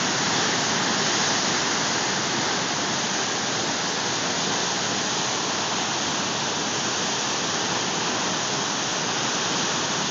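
Great Falls of the Potomac rapids running moderately high after heavy rains upstream: a steady, unbroken rush of whitewater.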